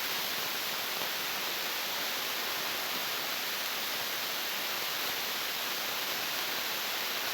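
Fast floodwater rushing: a steady, even rush of water with no breaks.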